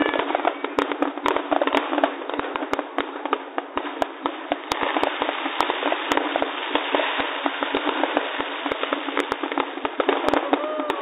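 Many fireworks going off together: an uneven string of sharp pops and bangs, several a second, over a steady background noise.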